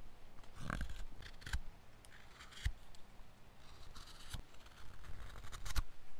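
A knife blade whittling a wooden stick: a series of uneven short cutting strokes as shavings are sliced off, with a few sharp clicks among them.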